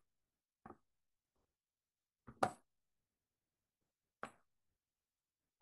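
A few short light knocks of clear plastic being set down and handled on a stamping platform, the loudest a double knock about halfway through.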